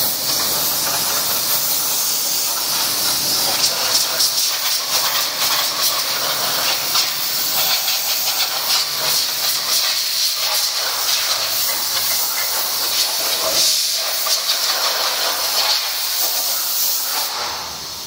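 Compressed-air blow gun on a coiled air hose hissing steadily as it blows dust out of a disassembled robot vacuum cleaner; the air cuts off about a second before the end.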